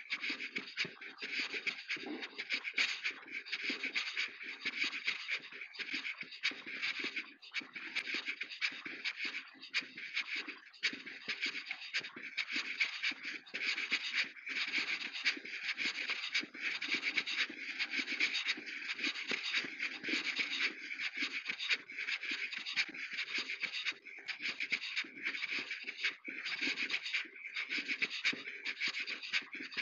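Footsteps of someone walking, a continuous run of scraping, crunching steps with short breaks between them.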